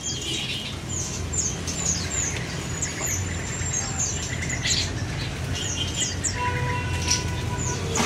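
Many caged songbirds chirping and calling together: a run of short, high, falling chirps, one long high whistle held about two seconds in, and some lower steady notes near the end, over a low steady rumble.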